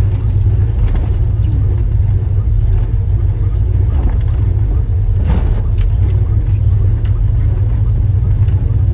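Jeep driving slowly over a rocky off-road trail: a steady low rumble of engine and drivetrain, with scattered knocks and clicks and a louder knock about five seconds in.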